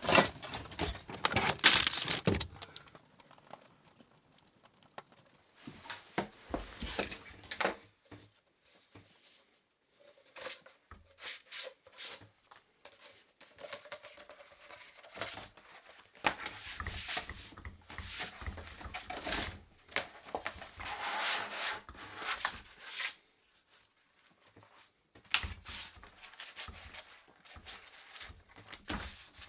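Gasket paper being traced and cut out by hand: intermittent rustling, rubbing and tearing sounds in short spurts, with brief pauses between them.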